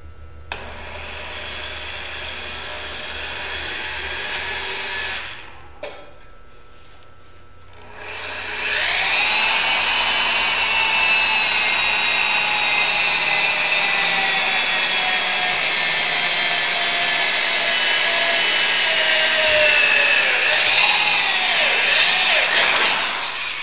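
Electric drill boring a hole through a steel exhaust header tube for an oxygen-sensor bung. A first short run gets louder over about five seconds, there is a pause of about three seconds, then a long loud cutting run whose pitch slowly falls, wavers, and stops just before the end.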